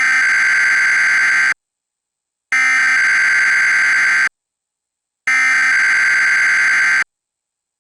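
Emergency Alert System SAME header data tones from a Trilithic EASyCAP encoder: three identical buzzy bursts, each about a second and a half long with about a second of silence between them. This is the coded header that opens an EAS alert.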